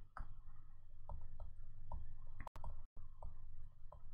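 Stylus tapping and writing on a tablet screen: a string of light, irregular clicks.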